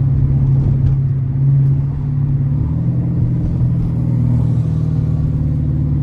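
Dodge R/T's 5.7-litre HEMI V8 engine running with a steady low hum, its pitch rising slightly about three seconds in.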